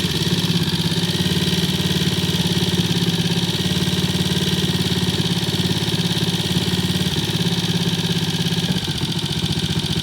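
Triumph T20M's single-cylinder four-stroke engine idling steadily, with rapid even firing pulses that ease off slightly about nine seconds in.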